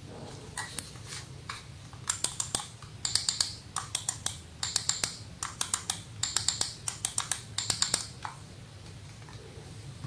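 Computer mouse buttons fitted with Kailh silent switches, clicked repeatedly: a few single clicks, then quick runs of clicks from about two seconds in until about eight seconds in.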